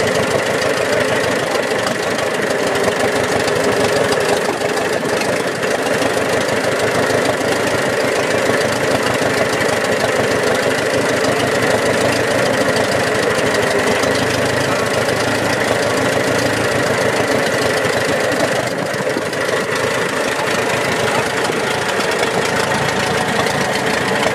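McCormick-Deering W-30 tractor's four-cylinder engine idling steadily.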